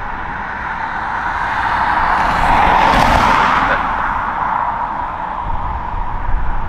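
Twin Rolls-Royce BR725 turbofans of a Gulfstream G650ER at takeoff power as the jet rolls down the runway: steady jet engine noise that swells, with a sharper hiss, to a peak about three seconds in, then eases off.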